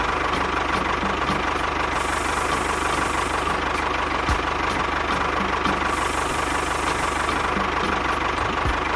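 Small engine running steadily at a constant speed, with a thin steady whine over its drone.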